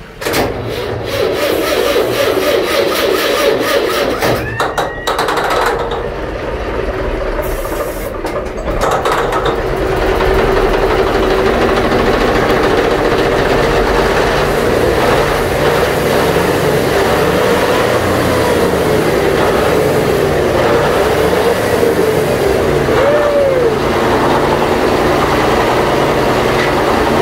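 Antique Murphy diesel engine cranking and firing on starting fluid with a rapid rasping beat, then settling into a steady run from about ten seconds in.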